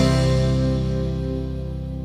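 Background music: a single held chord ringing out and slowly fading after a run of plucked notes.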